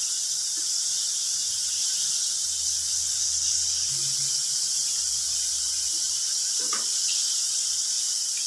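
Spice-flour-coated chicken pieces frying in hot oil in a frying pan: a steady, even sizzling hiss.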